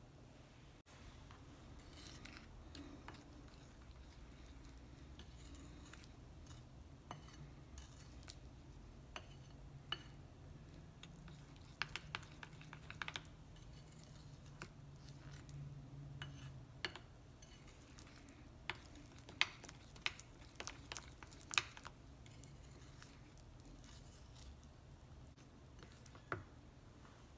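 A metal spoon stirring icing sugar and liquid into a lemon glaze in a glass bowl: soft scraping with many irregular sharp clinks of the spoon against the glass, thickest in the middle.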